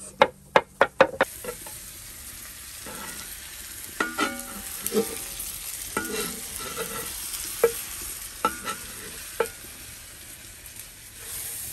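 A knife chopping garlic on a wooden cutting board: about five quick, loud chops in the first second. Then a steak sizzles steadily in a cast-iron skillet with butter and garlic, with a few short metallic clinks of a spatula against the pan.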